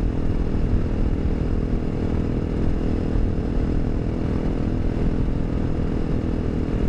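Honda CRF250L's single-cylinder four-stroke engine running at a steady cruise, with tyre and road rumble from washboard gravel.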